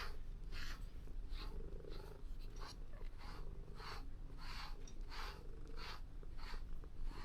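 Calico cat purring close up, a steady low rumble with a regular breathy pulse about every two-thirds of a second.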